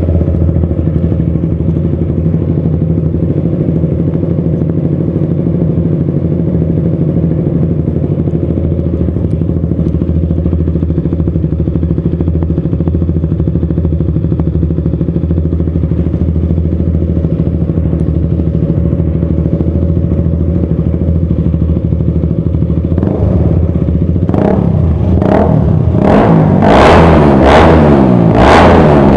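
KTM RC's single-cylinder engine, breathing through a Yoshimura R-11 exhaust with a three-hole Toce canister, idling steadily. About three-quarters of the way through it is revved repeatedly in quick blips, each rising and falling in pitch and growing louder toward the end.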